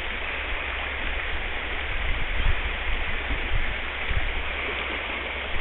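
Steady rush of a shallow river riffle running over rocks, with a few brief low thumps.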